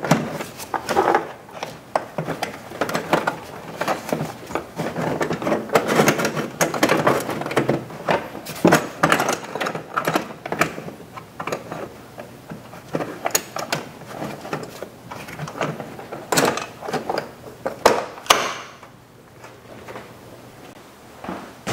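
Plastic air box and rubber intake tube being pushed and clicked back into place by hand: an uneven string of rustles, scrapes and clicks that dies down near the end.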